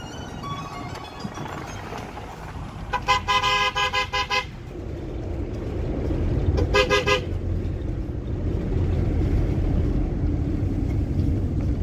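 A vehicle horn tooted in rapid strings of short beeps: a long burst of about eight beeps a few seconds in, then a shorter burst of three or so a little later. Under it runs the low road and wind rumble of the moving vehicle, growing louder in the second half.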